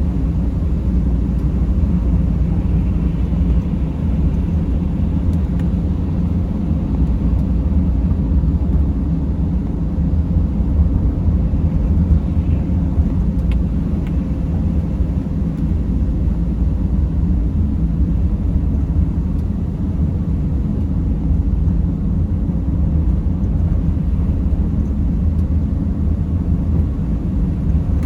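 Mercedes Sprinter van driving at a steady pace, a continuous low rumble of engine and road noise heard from inside the cabin, with a faint steady hum above it.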